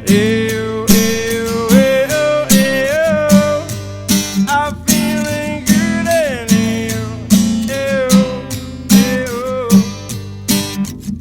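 Acoustic guitar played as an instrumental: a melody line that slides and bends between notes over steady bass notes, with sharp percussive hits keeping a regular beat.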